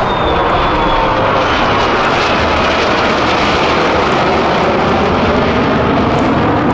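Loud, steady jet noise of a U.S. Navy F-35C's Pratt & Whitney F135 engine during a flying display, with a faint falling whine in the first second or so.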